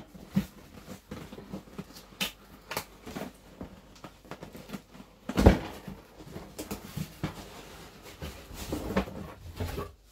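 Cardboard box and packaging being opened and handled: scattered rustles and light knocks, with one louder thump about halfway through.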